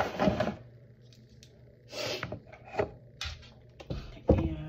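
A handful of short rubbing and scraping handling noises close to the microphone, irregularly spaced.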